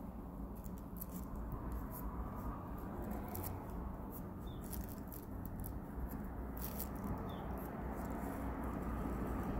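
Steady low room hum with faint, scattered small clicks and ticks.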